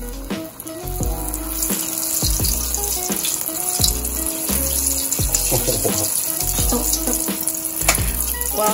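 Batter-coated strawberry deep-frying in a saucepan of hot oil: a steady, loud sizzle and bubbling hiss that builds about a second in. Background music with a regular beat plays over it.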